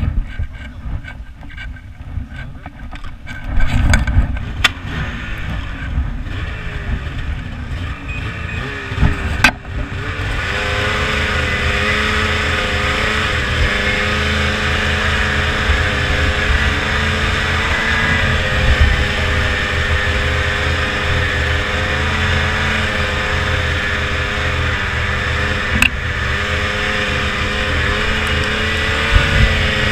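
Ski-Doo 600 RS two-stroke snowmobile engine running as the sled is ridden over grass: quieter and uneven for the first ten seconds or so, then a loud, steady engine note that wavers slightly in pitch as the throttle is held.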